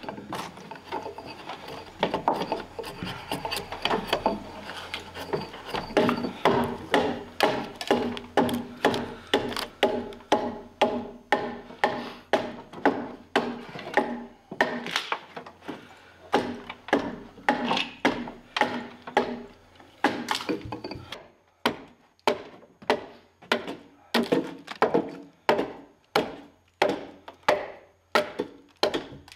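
Axe hewing the surface of a round log: a steady run of chopping strokes of the blade into the wood, about two a second, then a little slower. A steady hum sits under the strokes until about two-thirds through.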